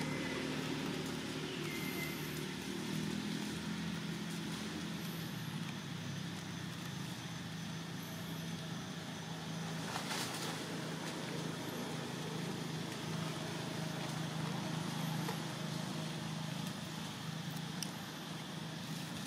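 Steady low engine hum of a running motor vehicle, with one sharp click about ten seconds in.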